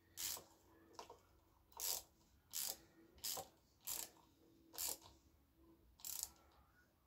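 Hand socket ratchet clicking in short back-and-forth strokes as bolts are tightened, about eight strokes at an uneven pace.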